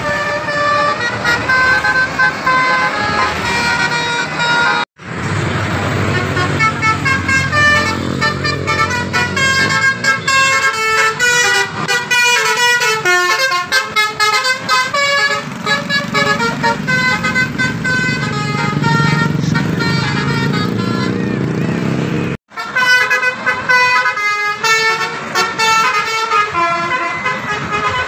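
Bus 'telolet' horns, the multi-trumpet electric horns of Indonesian intercity buses, playing rapid runs of short changing notes over the rumble of a passing bus engine. The sound cuts off abruptly twice, about five seconds in and again past twenty seconds.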